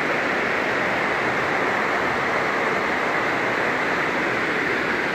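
Fast, muddy floodwater rushing through a flooded street: a steady, even rushing noise with no breaks.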